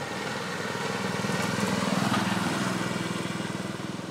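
The 5.5-horsepower gasoline engine of a Titan Jr. 1.5-inch-scale riding diesel locomotive running steadily under way. It grows louder to a peak about two seconds in as the locomotive passes, then fades as it moves away.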